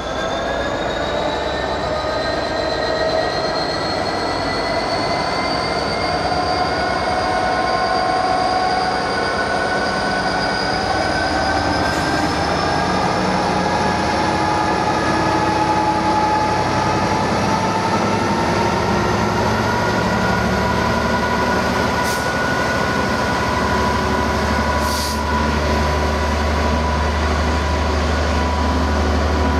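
Class 66 diesel-electric locomotive, with its two-stroke V12 engine, slowly hauling a container train away under power. A whine rises slowly and steadily in pitch as it gathers speed, with a few brief clanks. A deeper engine note strengthens near the end.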